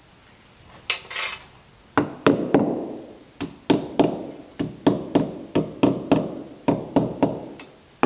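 A brief rustle about a second in, then a hammer lightly tapping epoxied wooden bungs into the screw holes of wooden boat planking, about three quick taps a second, seating the bungs flush in their holes.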